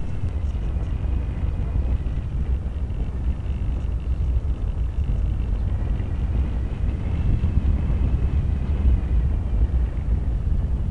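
Wind buffeting the onboard camera's microphone of a Multiplex Easy Star RC plane in flight, a steady low rumble, with a faint high whine from the plane's electric pusher motor.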